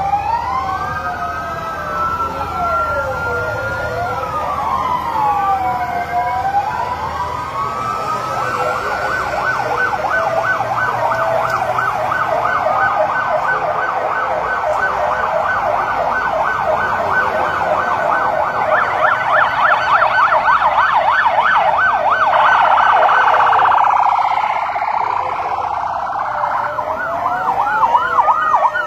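Several police vehicle sirens sounding at once and overlapping. Slow rising-and-falling wails come first; from about eight seconds in a rapid yelp takes over, loudest around twenty seconds in, and slower wails return near the end.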